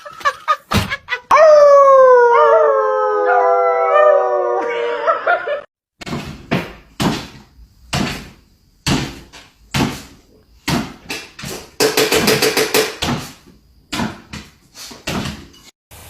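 A dog howling: one long wavering howl lasting about four seconds, its pitch sliding slowly down. It is followed by a string of short, sharp sounds about one a second.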